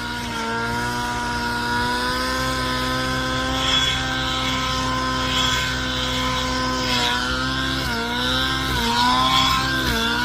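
Nitro engine of a 700-size RC helicopter running at a steady high speed. Its pitch dips briefly and recovers several times in the second half.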